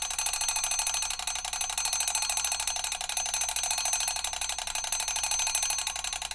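Mechanical alarm clock ringing: its hammer strikes the bell in a rapid, continuous metallic trill.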